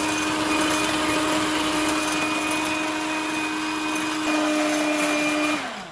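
Electric mixer whisking egg whites, its motor running with a steady hum. Shortly before the end it is switched off, and the pitch falls as it winds down.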